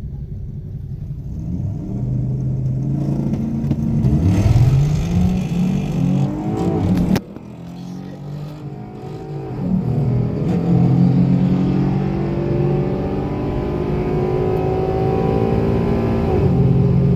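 Tuned 3.7 V6 Ford Mustang accelerating at full throttle on a quarter-mile drag run, heard from inside the car: the engine revs climb, a hard knock and sudden drop come at a slammed upshift about seven seconds in, and the revs climb again through the next gear.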